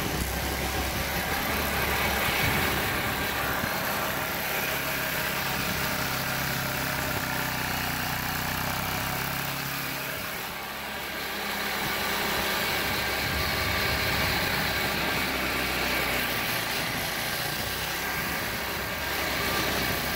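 Go-kart's Tecumseh small engine running while the kart drives along, heard close from on board, on a newly fitted replacement carburetor. The engine eases off about halfway through and picks up again a couple of seconds later.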